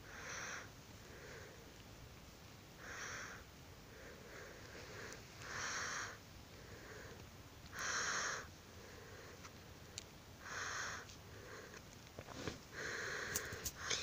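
A sick person's noisy, sniffling breaths through the nose close to the microphone, one breath about every two to three seconds.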